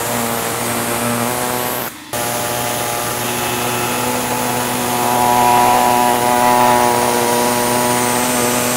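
Pneumatic reciprocating saw running steadily as it cuts through the plastic vertical bars of a truck grille, a buzzing tone over air hiss. It stops for a moment about two seconds in, then runs again, a little louder in the second half.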